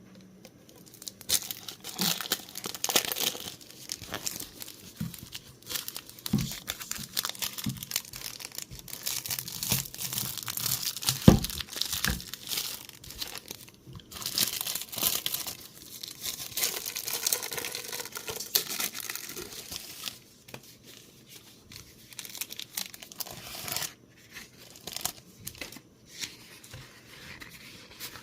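Parcel packaging being torn open and crinkled by hand, in uneven stretches of rustling with a few sharp knocks and short pauses.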